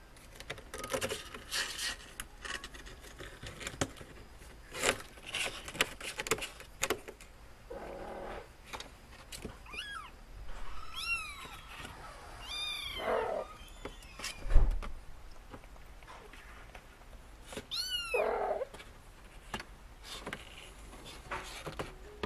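Kittens mewing: several short, high calls that rise and fall in pitch, mostly in the middle and again near the end, with light scuffling and clicks in between.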